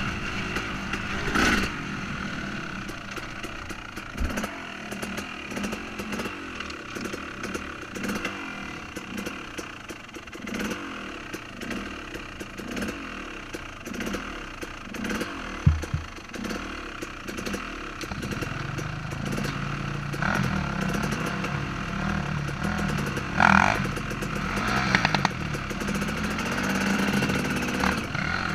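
2014 KTM 250 SX two-stroke dirt bike engine revving up and down under throttle on a trail, with a few sharp knocks and rattles from the bike. In the last third it settles into a steadier low note.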